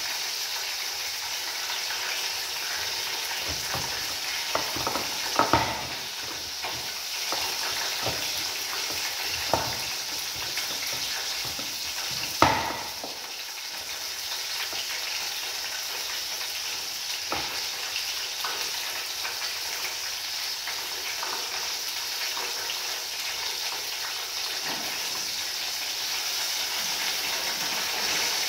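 Food frying in hot oil in a pan: a steady, high sizzling hiss, broken by a few sharp clicks, the loudest about twelve seconds in.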